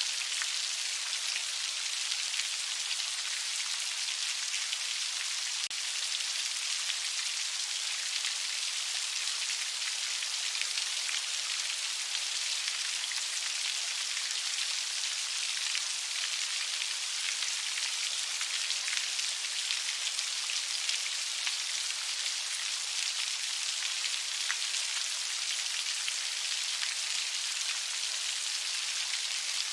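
Heavy rain falling steadily, an even hiss of many drops with no let-up.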